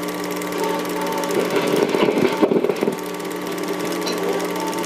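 Film projector running: a steady mechanical whirr with rapid fine clatter and a constant hum. About halfway through, a louder, irregular jumble of sound rises over it for a second or so.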